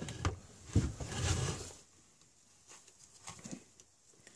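Handling noise from parts being fitted into a Stihl 044 chainsaw's rear handle: rubber-gloved hands rustling against the plastic housing, then a few faint small clicks and taps as the throttle trigger and linkage are lined up.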